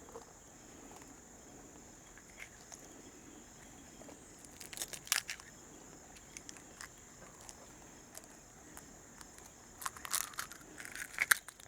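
Chicken eggshell being cracked and picked apart by hand, faint crackling with a few sharper cracks about five seconds in and again about ten seconds in. A steady high insect drone runs underneath.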